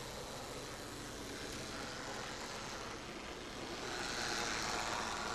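Model locomotive running on the track with its train: a steady whirr of its small electric motor and wheels on the rails, getting louder about four seconds in as it comes nearer.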